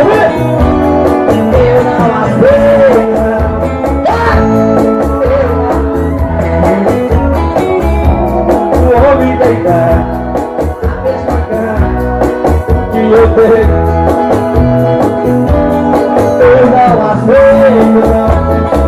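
Live band music with electric guitar, keyboard and drums, a steady beat and gliding melodic lines.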